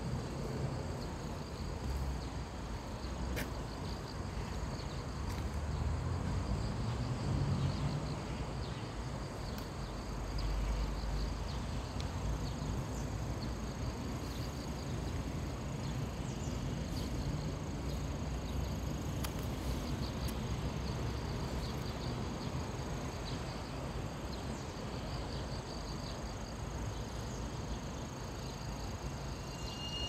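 Insects trilling steadily in high, unbroken tones over a low background rumble.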